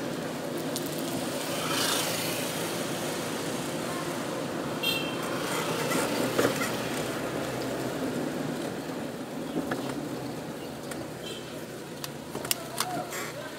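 Car running along a street, heard from inside the cabin: a steady engine hum and road noise. There are a few short sharp clicks near the end.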